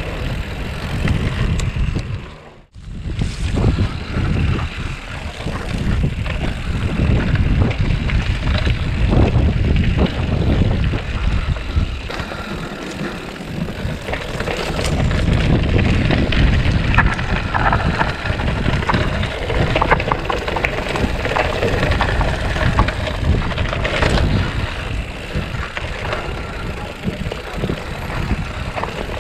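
A mountain bike being ridden along a dirt trail: a steady rush of wind and tyre noise with the bike rattling and knocking over the bumps. There is a brief drop in the sound about three seconds in.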